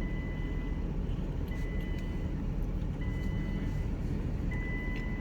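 A Nissan GT-R running with a low steady rumble while a high warning beep, each a little under a second long, repeats about every one and a half seconds, four times.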